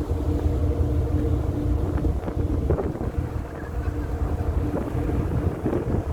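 Moving car ferry's engines and machinery giving a steady droning hum, with wind buffeting the microphone as a gusty low rumble.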